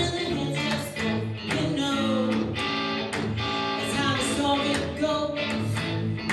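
Rock song playing, with guitar and a steady drum beat under a sung melody.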